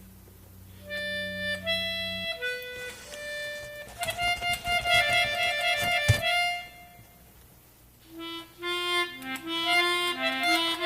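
A free-reed instrument of the harmonica or accordion kind played in short phrases: a few held notes, then quicker runs of notes. It stops for about a second two-thirds of the way through, then resumes with fast, rapidly changing notes.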